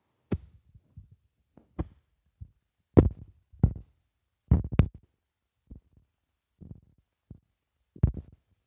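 About a dozen dull thumps and knocks at irregular spacing, the loudest around three and five seconds in.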